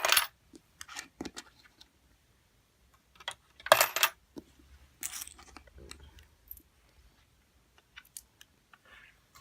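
Small coins dropping into a LEGO vending machine's coin slots and clattering through the plastic bricks to be returned, a few sharp clatters, the loudest at the start and about four seconds in, with lighter clicks between.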